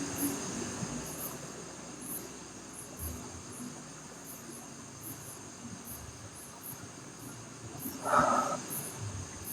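Crickets chirping: short high-pitched chirps about twice a second over a steady high insect drone. About eight seconds in, a brief louder sound cuts in.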